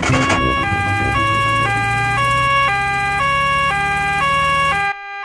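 Cartoon two-tone emergency siren on a doctor's car, alternating high and low notes about twice a second, over a steady low hum that cuts out near the end.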